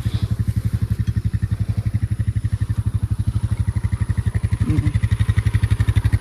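An engine idling steadily with an even, fast low chug, about a dozen pulses a second.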